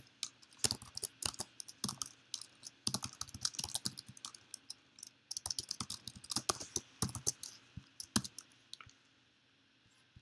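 Typing on a computer keyboard: quick runs of key clicks with short pauses, thinning out to a few clicks about eight seconds in.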